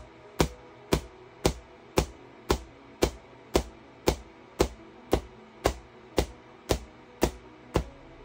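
QCW pancake Tesla coil firing single bursts about twice a second, each a sharp crack of the arc, with the cracks evenly spaced and all alike.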